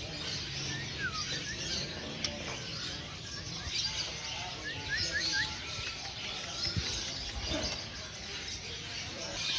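Many caged songbirds chirping and twittering at once, a dense steady chorus with short quick chirps scattered through it.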